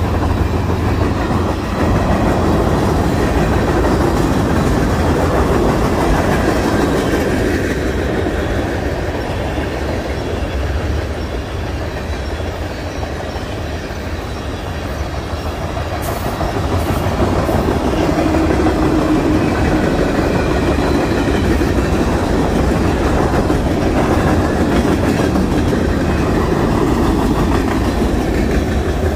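Freight cars of a passing mixed freight train rolling by at close range: steady noise of steel wheels on the rails, easing a little about halfway through and building again.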